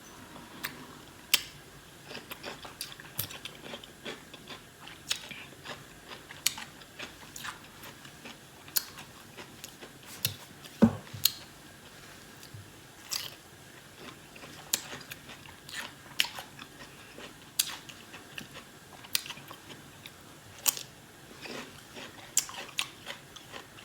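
A person biting into and chewing a pickle, with sharp, irregular crunches a little over once a second.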